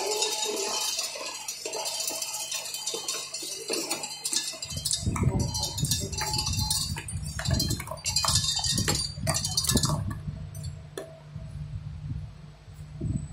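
Pharmaceutical tablets clicking and clinking on stainless steel as they run along a tablet inspection belt and drop down the chute through a metal detector. A low steady machine hum joins them about five seconds in. The clicks are densest in the middle and thin out near the end.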